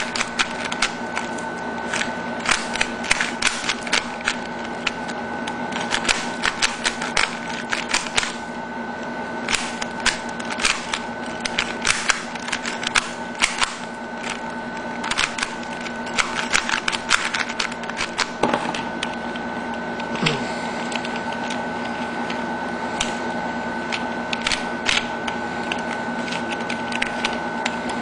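Plastic 3x3 Rubik's cube being turned fast by hand in a speedsolve: rapid clicking of layer turns in quick bursts with short pauses, over a steady electrical hum.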